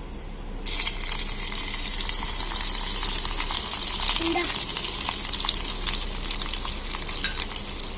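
Onions and green chillies hitting hot oil in a small pot: a loud sizzle starts suddenly a little under a second in and keeps on, steady with fine crackling, as they fry.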